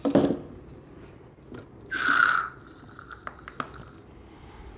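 Steel parts of a 3-ton hydraulic floor jack being handled: a clunk at the start, then about two seconds in a half-second grating scrape as the lift arm is swung up on its pivot, then a few light metal clicks.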